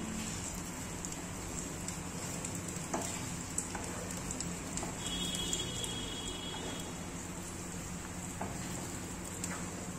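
Besan (gram flour) batter sizzling steadily in mustard oil in a non-stick frying pan over a high gas flame as it cooks and thickens. A spatula stirring it gives a few light clicks against the pan.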